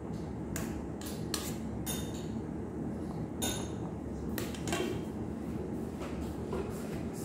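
Metal spoon clinking against a stainless steel bowl and tray while scooping and spreading tomato pizza topping: a dozen or so irregular sharp clinks with a brief metallic ring, over a steady low background hum.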